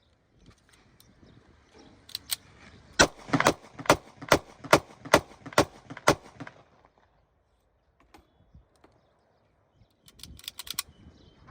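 30 bore (7.62×25 mm Tokarev) semi-automatic pistol firing a rapid string of about ten shots, two to three a second, then a few quieter clicks near the end.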